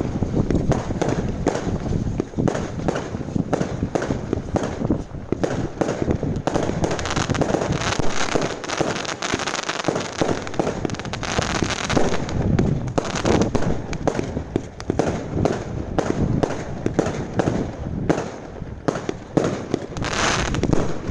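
Category 2 and 3 consumer fireworks going off in a dense barrage: many sharp bangs a second, with crackling between them.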